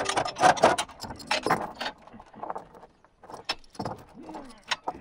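Steel chain rattling and clinking as it is handled and looped around a metal engine run stand. The rattling is dense for about the first two seconds, then comes as scattered sharp clinks.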